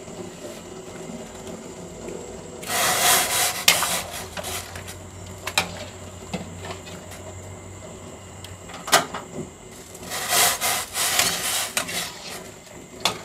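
Metal slotted ladle scraping and clinking against a steel wok and a stockpot as parboiled chicken pieces are scooped out and dropped into the water. There are two longer rasping scrapes, a few seconds in and again near the end, with sharp single clinks between them.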